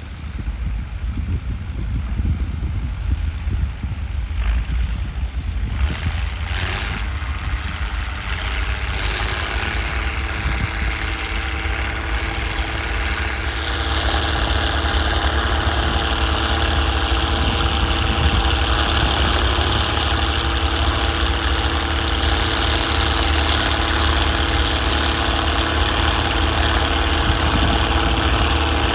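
Straight-piped Case 1056XL tractor's six-cylinder diesel running steadily while ploughing, its open exhaust note getting louder and harsher about halfway through and staying there.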